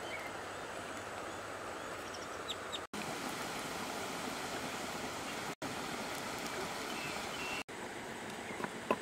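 Shallow river running over stones, a steady rush of water with a few faint bird chirps; the sound drops out briefly three times.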